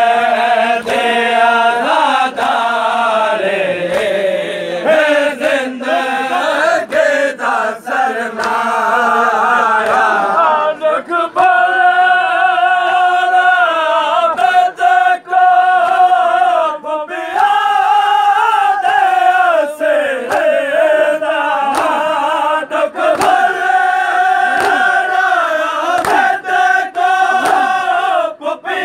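A group of men chanting a nauha, a Shia mourning lament, together in a slow melody, with sharp hand slaps of matam (chest-beating) falling in a steady beat a little faster than once a second.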